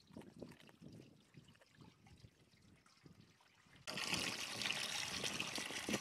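Milk poured in a stream from a metal bowl into a metal basin already holding milk, splashing as it lands. The pouring starts suddenly about four seconds in; before that there are only faint small sounds.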